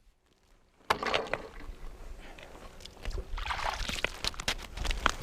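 About a second of silence, then water sloshing and splashing in an ice-fishing hole with small handling clicks, as fishing line is worked through the hole.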